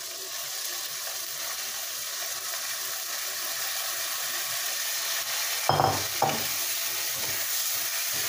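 Rice and toasted vermicelli sizzling in a hot pan as they are stirred with a spatula, the sizzle building up as the rice goes in. Two sharp knocks come about two-thirds of the way through.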